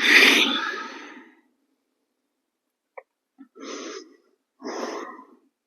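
A person breathing out audibly and heavily after holding a plank. First comes one long, loud exhale that fades over about a second and a half, then two shorter breaths.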